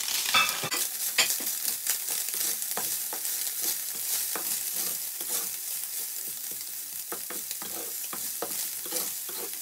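Minced tofu, onion and garlic sizzling in oil in a stainless-steel frying pan, stirred with a nylon slotted spatula that scrapes and taps against the pan. A steady hiss with frequent clicks from the spatula, the sharpest in the first second or so.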